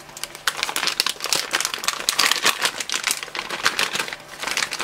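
Plastic packaging bags crinkling and rustling in the hands as they are pulled open, a dense run of irregular crackles.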